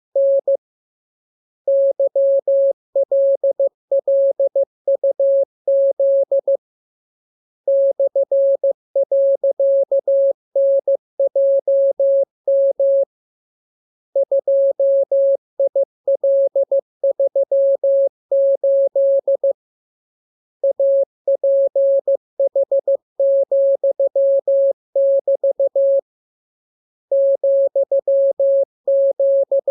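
Morse code (CW) practice signal: a single steady tone keyed on and off in dots and dashes, sending character groups about five seconds long with a pause of about a second between groups. It is a training radiogram of the letters, figures and signs being learned.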